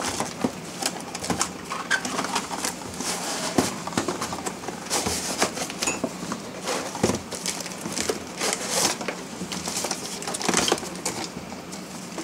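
Cardboard box and plastic wrapping rustling and scraping as gloved hands dig a replacement fuel pump assembly out of its packaging, with irregular crinkles and light knocks.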